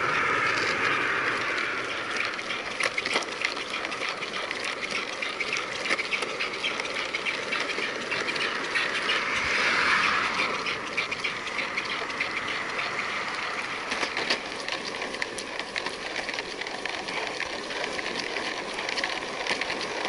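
Skateboard wheels rolling steadily over an asphalt bike path, with scattered sharp clicks. A car passing on the adjacent road swells up about ten seconds in.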